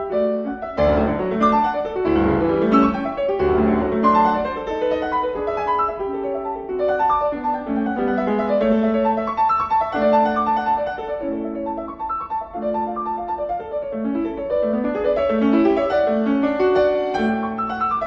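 Background music: solo piano playing a continuous melody over a steady run of chords, with deeper bass notes in the first few seconds.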